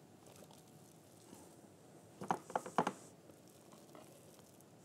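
Spatula scraping thick chickpea and avocado filling out of a plastic food-processor bowl, with a few short knocks of spatula and bowl a little past two seconds in.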